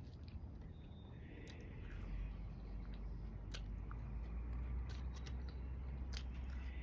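Close-up eating sounds: scattered sharp mouth clicks and smacks from chewing, over a steady low outdoor rumble.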